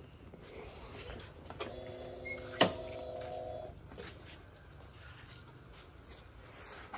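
Quiet outdoor background with faint insects and a couple of short bird chirps. A steady low-pitched hum lasts about two seconds, and a single sharp knock comes partway through it.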